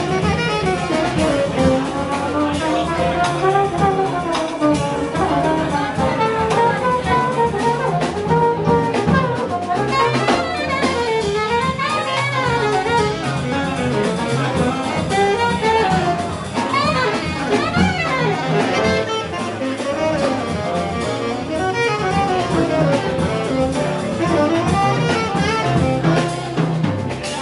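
Live jazz sextet playing: saxophones and trombone trade winding melody lines over double bass and drum kit.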